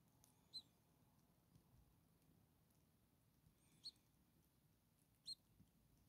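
Starling nestlings, a few days old, giving faint, short, high squeaks: one about half a second in, then two more near the end, a second and a half apart.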